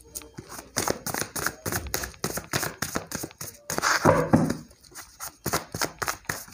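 A deck of tarot cards being shuffled by hand: an uneven run of soft card clicks and slaps, several a second.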